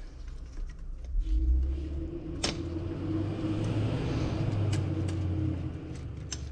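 A low rumble with a steady hum. It builds about a second in and fades near the end, and one sharp click comes about midway.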